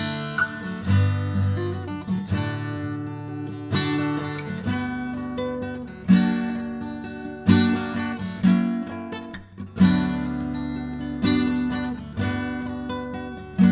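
Background music: an acoustic guitar strumming chords, a new strum about every second.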